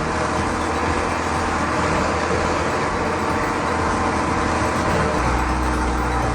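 Heavy vehicle engine running steadily and loudly, with a change in its low note about five seconds in.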